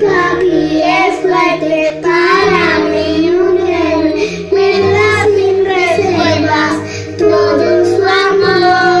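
Three young children singing a song together, with instrumental music playing behind them.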